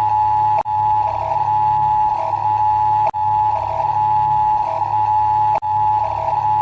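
Fan-made emergency alarm: a steady two-tone alert like an Emergency Alert System attention signal, over a low drone, with short lower beeps. It plays as a loop that cuts out briefly and restarts about every two and a half seconds.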